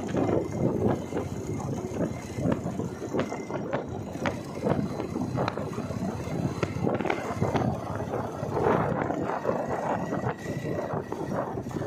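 Wind buffeting the microphone on a moving motorcycle, an uneven gusty rumble over the ride's road and engine noise.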